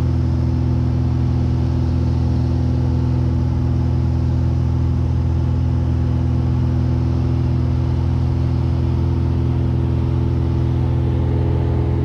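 Mooney M20F's four-cylinder fuel-injected Lycoming IO-360 engine and propeller heard from inside the cockpit in flight, running steadily at one unchanging pitch.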